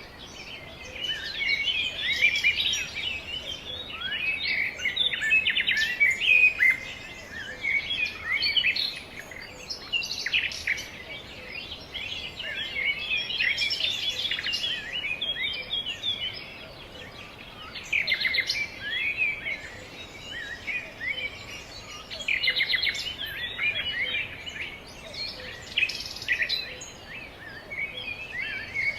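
Many small birds chirping and twittering, their short calls overlapping in a busy chatter with a few brief lulls.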